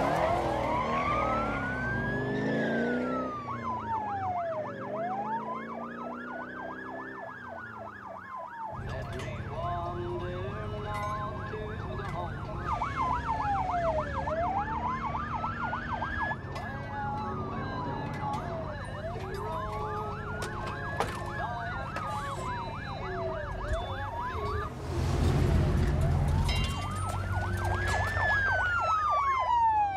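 Police car siren wailing, its pitch rising and falling slowly about every four to five seconds, with a fast yelp in stretches between. A low rumble of car engine and road noise runs underneath from about nine seconds in.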